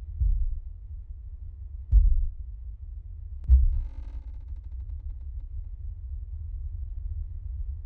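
A low, steady rumbling drone with three deep thuds spaced about a second and a half to two seconds apart, and a faint higher-pitched sound just after the third thud: the ominous low-frequency rumble of horror-film sound design that builds before a paranormal event.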